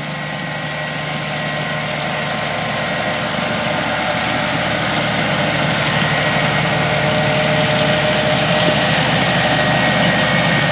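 Diesel engine of a large John Deere tractor running steadily while pulling an air drill to plant wheat, growing steadily louder as it comes closer.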